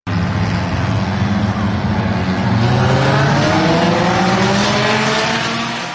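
Race car engines running loud, one of them rising in pitch as it accelerates; the sound fades out near the end.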